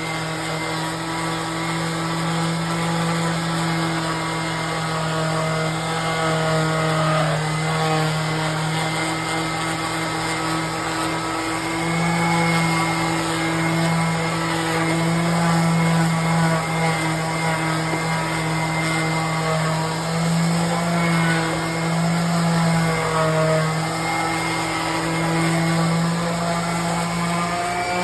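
Two electric sanders, a random-orbit sander and a vibratory sander, running steadily against log walls. Their motor hum wavers a little in pitch as they are pressed and moved.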